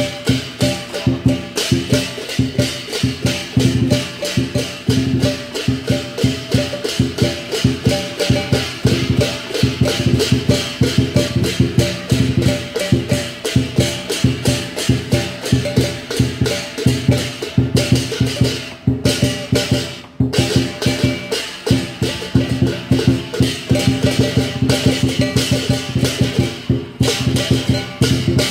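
Lion dance percussion band of drum, cymbals and gong playing a fast, driving beat of several strokes a second, with two brief breaks about two-thirds of the way through.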